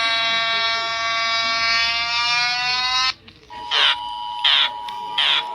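Emergency alert broadcast tones. A steady, buzzy alert tone with many overtones cuts off suddenly about three seconds in. After a brief gap a different alert starts: a steady higher tone with a short, sharp beep about every 0.7 seconds.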